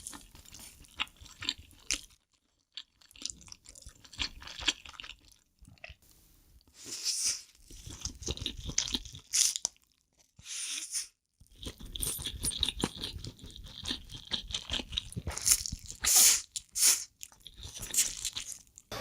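Close-miked chewing of mouthfuls of instant noodles: a dense run of short mouth clicks and smacks with a few longer noisy stretches, broken by brief pauses twice.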